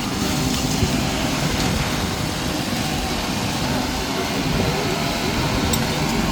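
Heavy construction machinery engine running steadily.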